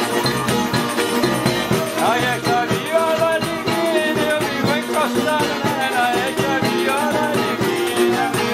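Live acoustic folk music: a small strummed guitar and a larger guitar playing together with bowed rabecas (folk fiddles), a continuous melodic line over steady strumming.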